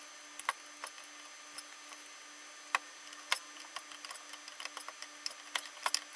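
Light, irregular clicks and ticks of a hand screwdriver and small metal parts being worked on a stepper motor driver board. The clicks come more often in the last couple of seconds, over a faint steady hum.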